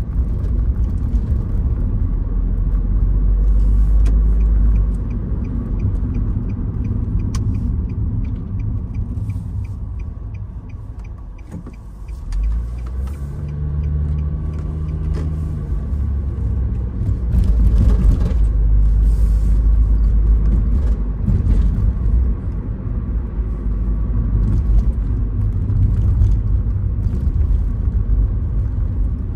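Engine and tyre noise of a car driving, heard inside the cabin as a steady low rumble. It eases off and quietens about eleven seconds in, then builds again with a brief rising hum as the car picks up speed. A faint regular ticking runs for several seconds in the first half.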